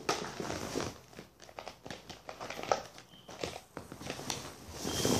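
Soft rustling with scattered light clicks and taps close to the microphone, and a breathy swell of noise near the end.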